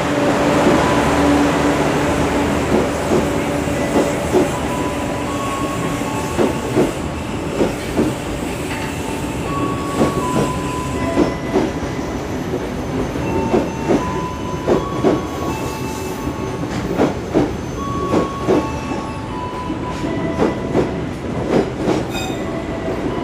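Passenger coaches of a train rolling past at close range: a steady rumble with the wheels knocking over rail joints again and again, and short high squeals coming and going.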